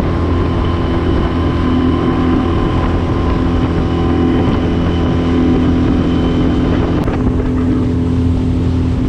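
Suzuki outboard motor running at a steady high speed, driving a small aluminium tinny, with water rushing past the hull.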